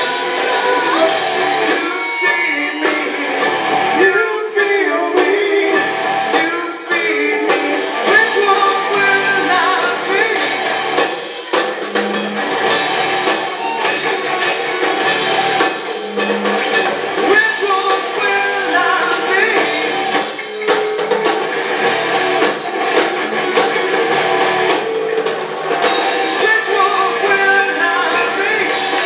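Live rock band playing with electric guitars, bass and a drum kit, with a voice singing, recorded from the audience floor.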